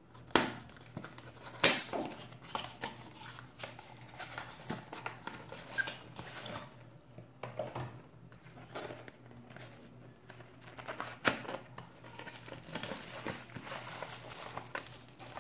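Cardboard box packaging being opened and handled: irregular scraping, rustling and light knocks as an inner box slides out of its sleeve, with crinkling of a plastic bubble-wrap bag toward the end. A few sharper clicks stand out near the start and about eleven seconds in.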